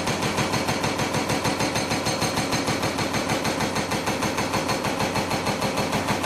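Hydraulic rock breaker mounted on a Doosan excavator hammering rock in rapid, even blows.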